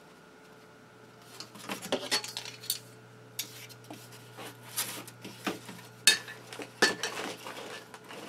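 Long steel ruler being lifted, slid and set down on a foamboard sheet, with irregular metallic clinks and taps; the two loudest come about six and seven seconds in.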